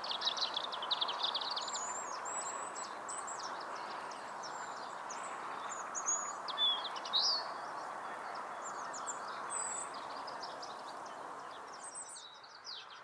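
Several small birds chirping and calling: a quick trill in the first second or so, then scattered short chirps, with a couple of louder calls about halfway through. Under them runs a steady background hiss.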